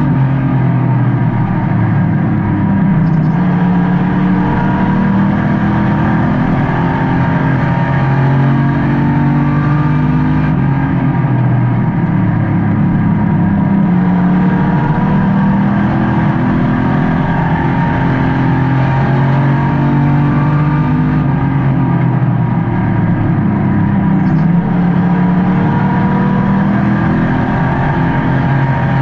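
Race car engine heard from inside the car during a race, running hard the whole time. Its pitch falls and then climbs again about every ten seconds, easing off for the turns and revving back up down the straights lap after lap.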